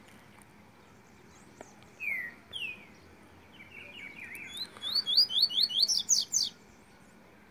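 A songbird singing: a couple of downslurred whistled notes, then a fast series of repeated slurred notes that climb in pitch and grow louder before stopping.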